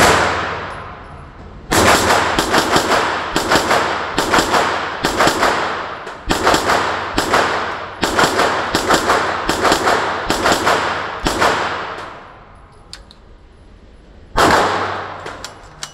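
AR-9 pistol, a 9mm AR-platform pistol fitted with a muzzle brake, firing: one shot at the start, then a rapid string of about twenty semi-automatic shots at roughly two a second, and one last shot near the end. Each shot rings on in the indoor range booth.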